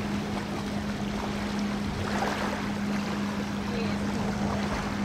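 Lakeside ambience: wind buffeting the microphone and water lapping, under a steady low hum that holds one pitch throughout, with faint distant voices.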